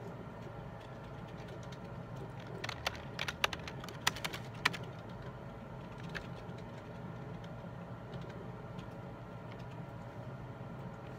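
A short, irregular run of computer keyboard key clicks about three to five seconds in, with one more click a little later, over a steady hum of office room tone.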